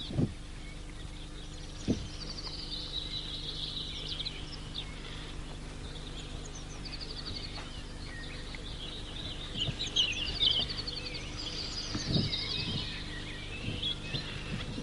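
Small birds singing, with quick chirps and trills starting about two seconds in, over a steady low hum. A few soft low thumps, one at the very start and one about two seconds in.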